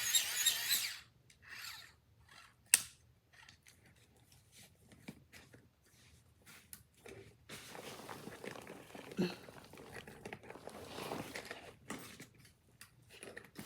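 Wind-up flashlight's hand crank whirring, stopping about a second in. Then scattered clicks with one sharp loud click, and from about halfway on, rustling and crinkling as the stuffed bag and its packed contents are handled.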